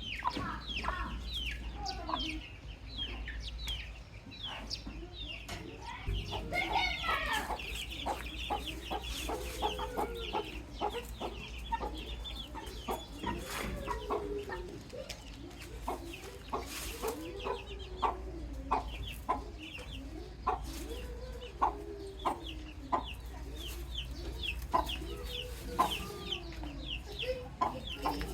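A flock of baby chicks peeping constantly, a dense run of short, high, downward-sliding peeps, with lower, longer clucking calls from adult chickens every couple of seconds. A steady low hum runs underneath.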